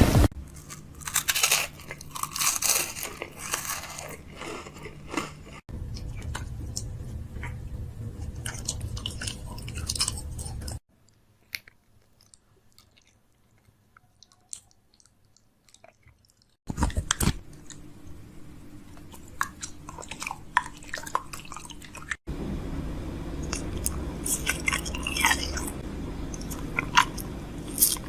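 Close-up crunching and chewing, a crackle of small crisp bites in several short stretches, with a silent gap in the middle.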